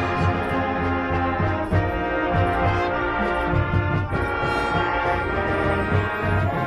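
High school marching band playing, brass-led: held full chords from the horn line over a steady low brass bass, changing chord a couple of times.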